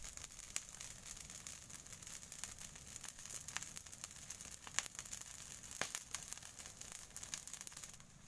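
Open fire of dry fronds and twigs crackling as it grills sea urchins, with frequent sharp pops and snaps. The crackling thins out near the end as the fire burns down to embers.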